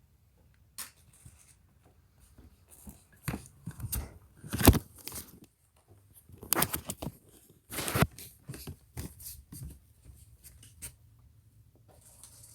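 Packaging being handled and torn open: irregular rustling and crinkling with scattered clicks and knocks, the loudest knock about a third of the way in.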